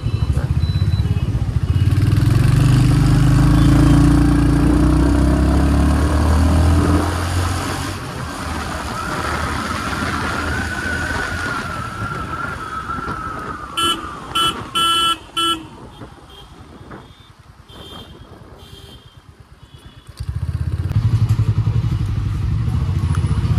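Motorcycle engine running while riding in city traffic, pulling strongly for the first several seconds and then settling into a wavering whine at cruise. A horn gives four short beeps about fourteen seconds in. The engine then drops to a quiet idle and picks up again near the end.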